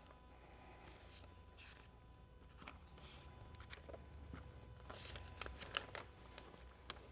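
Faint rustling and a few light clicks of a sheet of paper being handled, over a low steady room hum.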